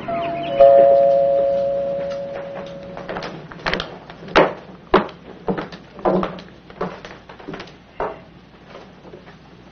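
A doorbell chime rings about half a second in, its two tones fading over a couple of seconds, followed by a string of footsteps crossing to the door.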